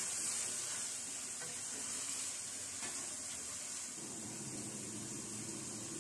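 Besan dumplings in masala gravy sizzling in a steel kadhai while a spatula stirs them: a steady frying hiss, with a couple of faint scrapes of the spatula.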